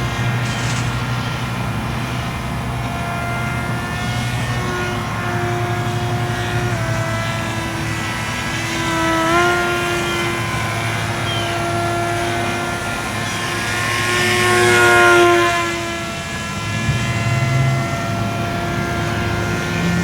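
Radio-control model F7U Cutlass aircraft in flight, its motor a steady whine that shifts pitch with throttle changes. About 15 s in it grows louder, then drops in pitch as it passes the microphone.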